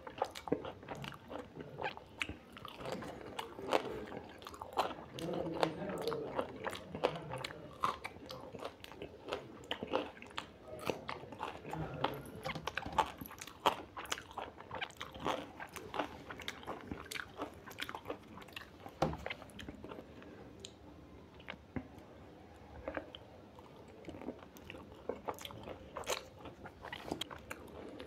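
A person eating a mutton curry meal close to the microphone: continuous chewing and mouth clicks with many crisp, crunchy bites, busier in the first half.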